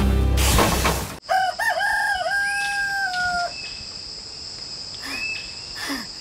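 A rooster crows once, a long cock-a-doodle-doo that wavers at the start and then holds and trails off slightly. It comes in right after background music cuts off about a second in. A steady high hum and a few short chirps follow.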